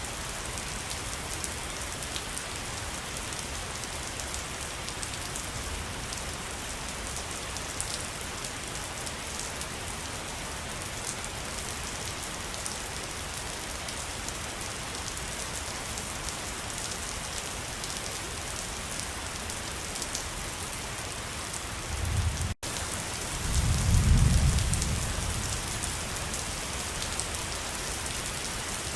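Waterfall rushing steadily. About 22 seconds in, the sound drops out for an instant and a low rumble swells for a couple of seconds, the loudest moment, before fading back into the steady rush.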